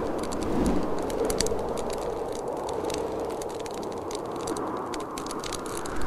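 Fireplace crackling, with frequent small sharp pops and snaps over a steady rushing noise of blizzard wind.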